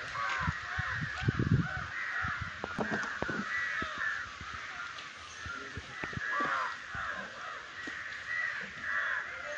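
Several crows cawing, with many overlapping calls throughout. A few low thuds come in the first two seconds.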